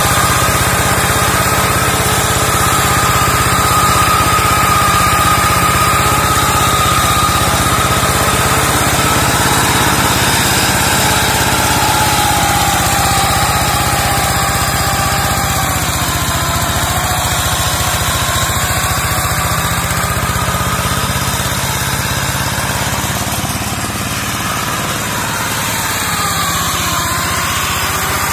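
Two-wheel hand tractor's single-cylinder diesel engine running steadily under load as its mower attachment cuts through undergrowth, with a whine above the engine note that drifts lower partway through.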